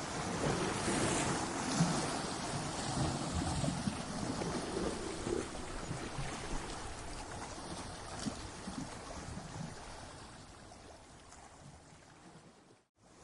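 Ocean waves breaking and washing against coastal rocks as a rough, rushing surf noise. The wash swells in the first few seconds, then recedes and fades, cutting out abruptly near the end before the next wave builds.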